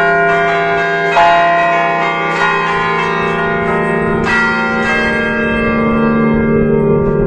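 A five-bell concert of church bells in E-flat, cast by Giorgio Pruneri in 1910, heard at close range from inside the belfry, struck by hand in an allegrezza: a quick festive pattern of clapper strokes on the different bells. The last strokes come about five seconds in, and the bells then ring on with a deep hum as they die away.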